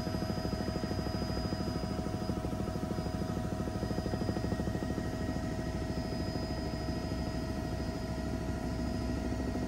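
Helicopter in flight heard from inside the cabin: a steady engine whine over a fast, even rotor throb.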